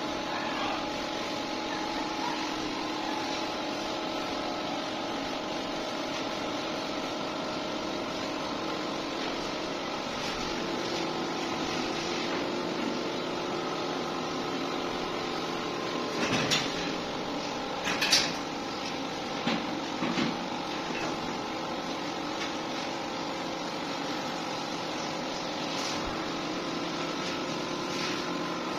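Steady mechanical hum with several held tones, like a fan or air-conditioning unit running. A few short scraping knocks sound about two-thirds of the way through.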